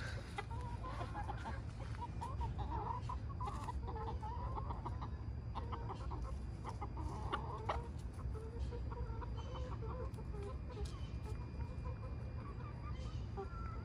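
A flock of chickens clucking, many short calls overlapping one another.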